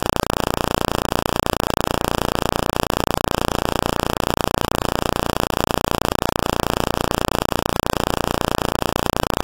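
Loud, steady hiss like static, with no change in pitch or level.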